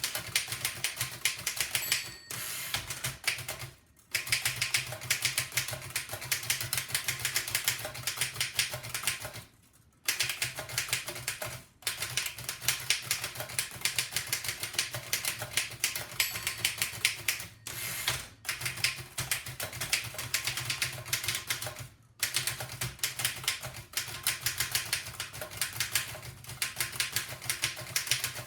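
1905 Fox No. 3 upstrike typewriter typed on at speed: rapid, dense clacking of the type bars striking, broken by a few short pauses.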